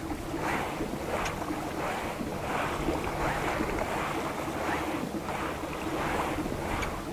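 Pedal-drive fishing kayak moving through choppy sea: water swishing along the hull in regular surges about every 0.7 seconds, with wind buffeting the microphone.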